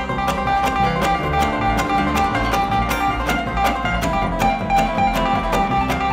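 Live bluegrass band playing an instrumental passage: banjo, acoustic guitar, mandolin and upright bass, with a quick, even pulse of picked strokes.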